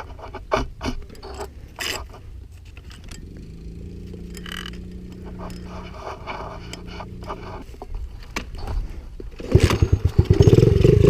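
Scattered clicks and scrapes, then a small four-stroke pit bike engine running at a low steady idle. About nine and a half seconds in, the engine revs up and turns loud.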